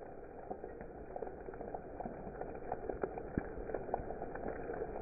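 Hail and heavy rain falling on wet, puddled ground: a steady wash of rain with many scattered sharp ticks of hailstones striking, growing slightly louder toward the end.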